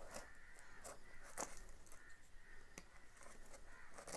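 Faint handling noises from a cardboard parcel and its plastic wrapping: a few light taps and rustles, the clearest about a second and a half in and just under three seconds in.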